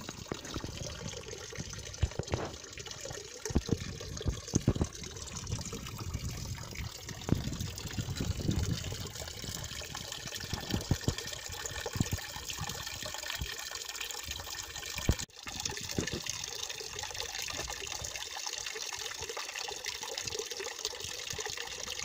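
Water from a stone fountain spout splashing steadily into a stone basin of standing water, a continuous trickling pour, with a brief dropout about fifteen seconds in.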